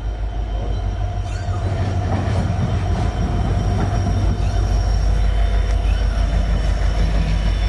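Indian Railways WDP4D diesel locomotive passing close by, its EMD two-stroke V16 engine giving a deep steady drone with a higher hum above it. The sound grows louder over the first few seconds as the locomotive comes alongside, then holds.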